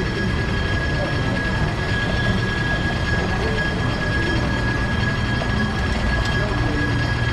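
1896 Hammond-built streetcar No. 578 running on its rails: a steady rumble with a steady high whine.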